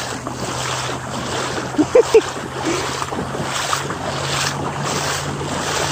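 Water sloshing and wind buffeting the microphone while moving through floodwater, swelling in a rhythm about every two-thirds of a second, over a steady low hum. Two short pitched blips stand out about two seconds in.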